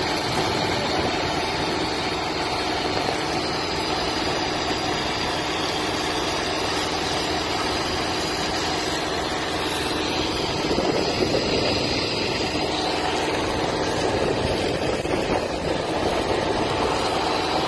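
Steady engine drone with a continuous rushing hiss, as a high-pressure water jet washes porcelain substation insulators. A slight swell comes about two-thirds of the way through.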